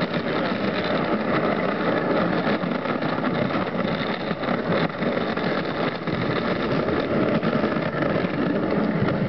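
Dog sled runners hissing and scraping over packed snow as the sled runs behind its team: a steady rush with small knocks and rattles from the sled.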